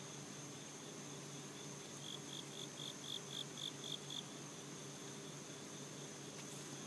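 Insects calling outdoors: a steady high-pitched cricket trill throughout. About two seconds in, a louder run of about nine rhythmic chirps comes at roughly four a second and stops after about two seconds. A faint steady low hum lies underneath.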